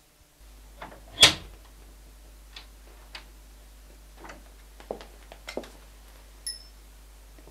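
A door latch clicks sharply about a second in as a room door is opened, followed by scattered faint taps and knocks as the door is eased open, over a steady low hum.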